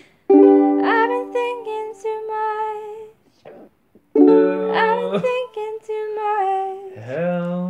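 Ukulele chords strummed and left to ring, one a third of a second in and another about four seconds in. A voice comes in near the end with a rising, wavering note.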